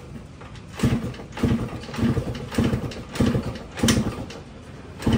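Yamaha RX-King's 135 cc two-stroke single being kick-started, turning over and coughing in about seven short bursts, most a little over half a second apart, without settling into a run. It is hard to start, which the mechanic puts down either to the oil not yet having come through or to the spark plug.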